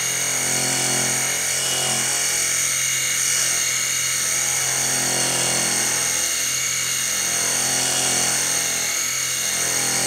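Cordless drill spinning a rotary fleece roller against a ski base, running steadily as it buffs and spreads liquid wax into the base.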